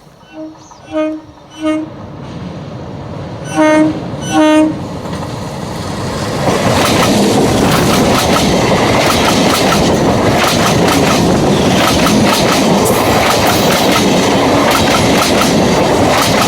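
Indian Railways train sounding its horn, three short toots then two louder ones, then passing close by over a small rail bridge with a loud, rhythmic clatter of wheels over the track.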